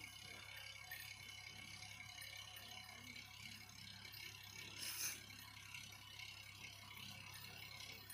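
JCB 3DX backhoe loader's four-cylinder diesel engine running faintly and steadily as the machine moves with a loaded front bucket, with a brief metallic clatter about five seconds in.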